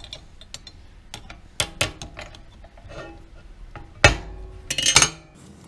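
Small steel pieces clinking and clattering as they are handled, with scattered light clicks, a couple of sharper knocks, and a louder metal knock about four seconds in followed by brief ringing clinks.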